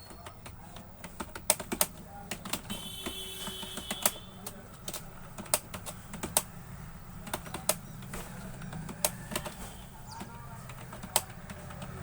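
Typing on a computer keyboard: irregular key clicks, a few a second with short pauses, over a steady low hum.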